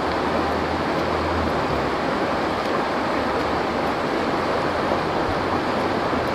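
A fast-flowing stream rushing over rocks: a steady, unbroken noise of white water.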